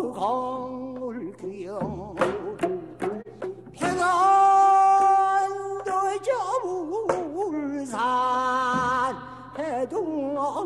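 A male singer sings a pansori danga in Korean with a wavering voice, holding one long note about four seconds in. He accompanies himself with sparse plucked strokes on the geomungo, in the geomungo byeongchang style.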